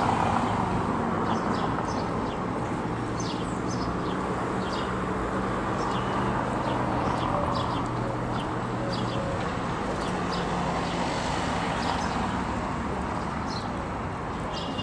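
Steady hum of motor traffic with a low engine drone underneath, and small birds chirping in short calls throughout.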